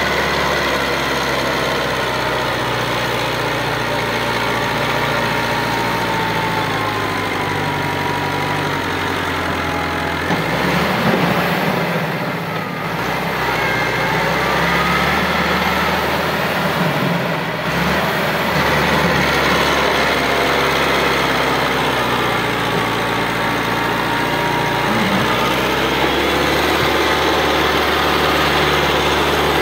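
Massey Ferguson 385 tractor's four-cylinder diesel engine running hard under a heavy load, pulling an overloaded sugarcane trolley. Its note shifts and dips briefly a couple of times midway, then steadies again.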